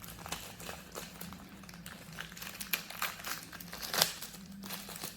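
Plastic packaging crinkling and rustling as it is handled, with scattered small clicks and crackles; the sharpest crackle comes about four seconds in.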